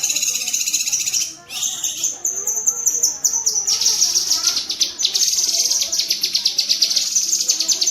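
Cucak kinoi singing a fast, harsh chattering burst ('tembakan'): a dense run of rapid high notes, with a brief break about a second and a half in.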